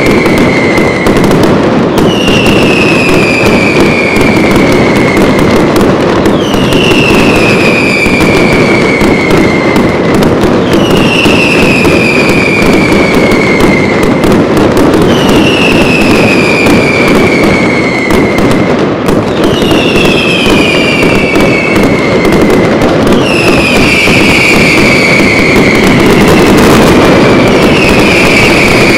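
Loud fireworks display: dense, continuous crackling and popping, with whistling fireworks giving a falling whistle every four seconds or so.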